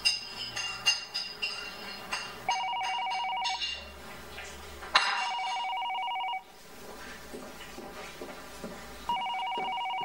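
Telephone ringing three times with an electronic ring, each ring a little over a second long. A few light clicks and knocks come before the first ring.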